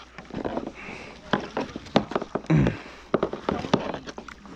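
Short knocks and clatter of handling on a plastic kayak, with people talking indistinctly.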